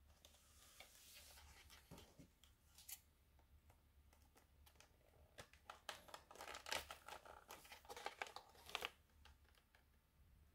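Plastic blister packaging being cut and torn open by hand: faint crinkling and small clicks, mostly in a cluster in the second half.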